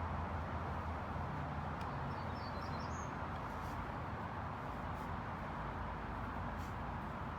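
Steady outdoor background noise with a low hum underneath, and a few faint bird chirps about two and a half seconds in.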